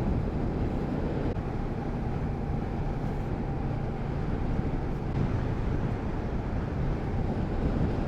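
Kawasaki Z650RS parallel-twin engine running steadily under way, heard through a rushing wind noise on the helmet-mounted microphone.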